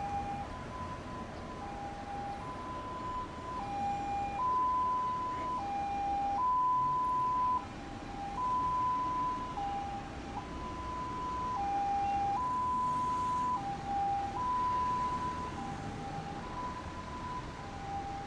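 Two-tone hi-lo siren of a high-roof Toyota Hiace ambulance on an emergency call, switching between a lower and a higher note about once a second, over traffic noise. It grows louder a few seconds in as the ambulance comes alongside and drops back near the end as it moves away.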